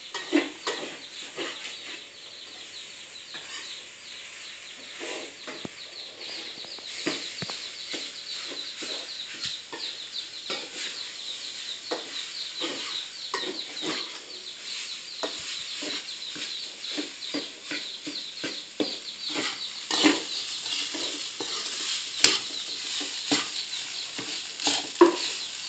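A metal spatula scraping and knocking against a wok as rice is stir-fried, with the oil sizzling. The knocks come irregularly, several a second.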